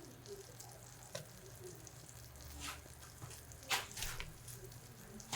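Faint frying sizzle of onions, herbs and green chilies in hot oil in a wok, with a few sharp clinks of a utensil on the wok, the loudest nearly four seconds in.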